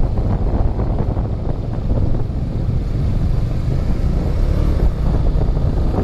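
Benelli TNT 25 motorcycle being ridden at low road speed: wind buffeting the microphone over the steady running of its single-cylinder engine.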